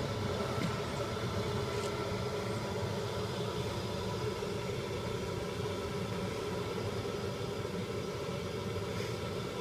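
Steady mechanical running drone with a constant hum, unchanging throughout.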